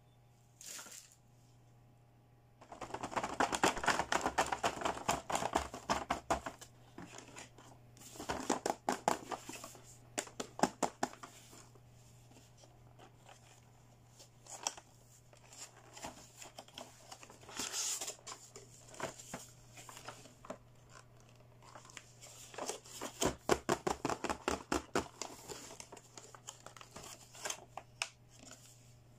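Clear plastic blister packaging on a toy hair-styling set crinkling and crackling as hands handle it, in several spells of dense crackle with quieter moments between.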